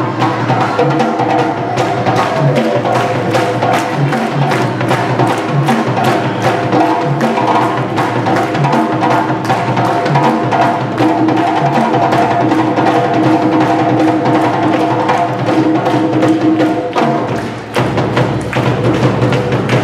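Percussion music: drums and sharp, wood-block-like clicks in a fast steady rhythm over held pitched tones, easing briefly near the end before carrying on.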